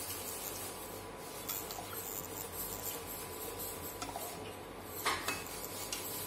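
A steel ladle scraping and clinking against a stainless-steel kadai as boiled dal is ladled in and stirred, with a sharper clink about five seconds in.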